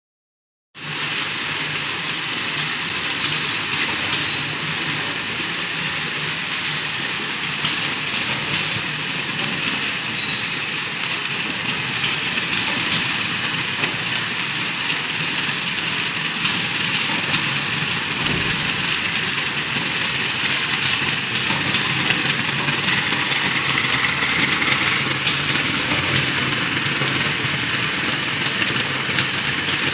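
Automatic drinking-straw counting and wrapping machines running: a steady mechanical hiss and whir with no clear beat, starting about a second in.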